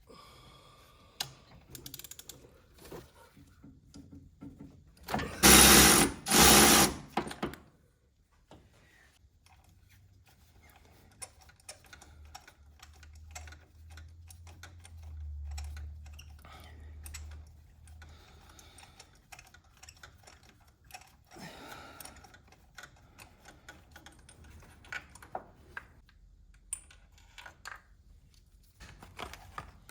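Hand-tool work on spark plugs: scattered clicks and clinks of a ratchet, socket and wobble extensions. Two loud noisy bursts of about a second each come close together around six seconds in.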